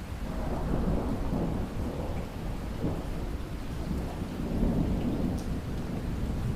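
Heavy pouring rain with a long roll of thunder that swells in at the start and keeps rumbling in waves.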